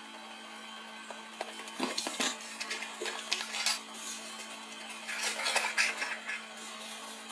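Hands pulling an action camera in its hard plastic housing out of a cardboard box insert: a series of sharp clicks, knocks and scraping rustles, over a steady low hum.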